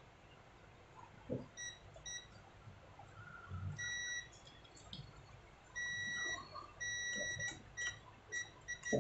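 UNI-T handheld digital multimeter beeping: a steady high-pitched tone in a string of short blips and several longer beeps of about half a second, with a few light clicks and knocks of the probes and board in between.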